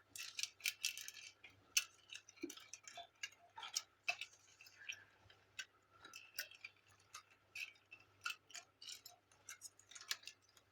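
Light, irregular clicks and taps from hands working at the printer's wiring as its cable connectors are pushed back into place, over a faint steady low hum.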